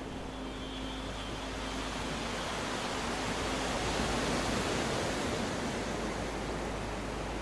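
Steady rushing of wind and churning wake at the stern of a moving boat, swelling a little towards the middle, with a faint steady hum underneath.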